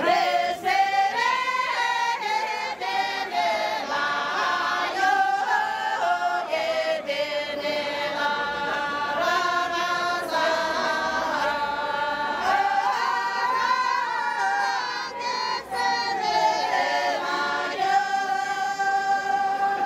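A group of women singing together in unison without instruments, a syabru folk song of the kind sung while dancing in a line, in long held notes that slide from one pitch to the next.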